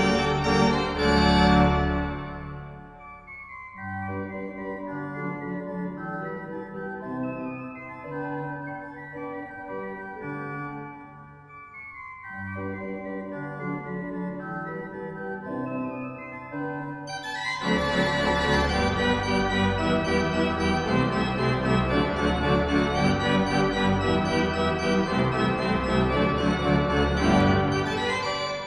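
Church pipe organ playing: a loud chord dies away over a couple of seconds, a quieter passage of held chords follows, and about 17 seconds in the full organ comes in loud and bright.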